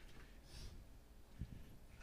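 Near silence: quiet room tone, with a faint breath about half a second in and a soft low thump about a second and a half in.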